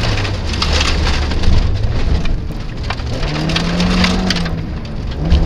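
Inside a rally car on a gravel stage, loose gravel clatters and sprays against the underbody and wheel arches over the engine as the car slows for a tight junction turn. The engine runs at low revs at first, picks up about three seconds in, then eases off again.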